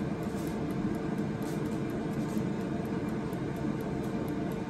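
Tower air fryer running: the steady whir of its fan with a low hum through it, the normal sound it makes while switched on and cooking.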